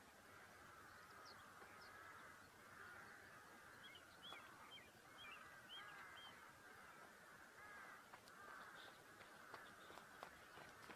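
Faint chorus of distant birds calling steadily, with a few higher calls a few seconds in. Near the end come a few soft footsteps on the dirt.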